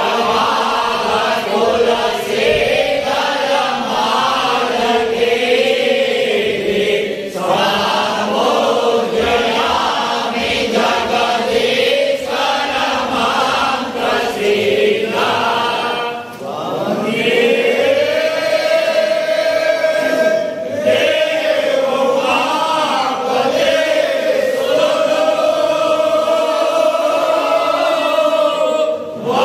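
A group of men chanting a Shiva aarti hymn together in unison, the voices dropping briefly about halfway through and then holding long sustained notes.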